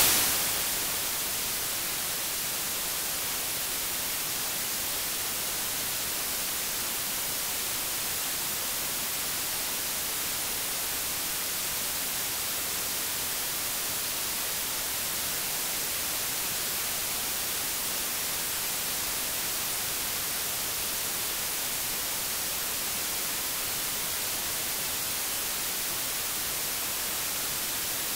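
Steady static hiss with nothing else to be heard: the sound track of the VHS transfer has dropped out to noise. It is a little louder at the very start and settles within the first second to an even, unchanging level.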